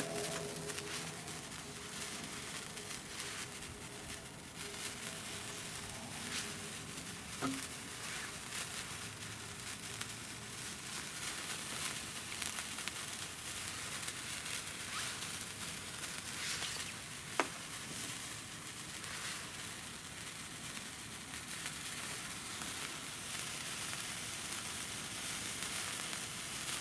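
Handheld #10 gold sparklers burning with a steady hissing crackle. Two sharper clicks stand out, one about seven seconds in and one about seventeen seconds in.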